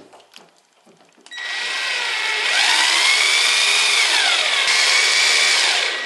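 Cordless drill-driver running, driving a small brass screw into a thumbturn's brass rose. The motor whine starts about a second in, rises in pitch, then falls again.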